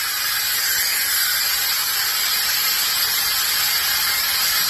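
Compressed air blowing out of the end of a coiled air hose in a steady, loud hiss. The line is fed through only a conventional water trap and regulator, and the air still carries water.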